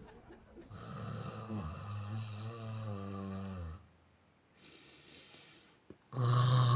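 A man's exaggerated fake snoring. One long, low, rattling snore runs from about a second in to nearly four seconds, then comes a fainter breath, and a louder snore starts near the end.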